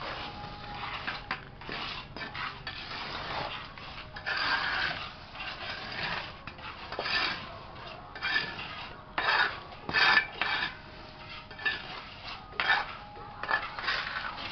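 A small metal trowel scraping and smoothing wet cement mortar around the edge of a round cement jar base, in short, irregular strokes.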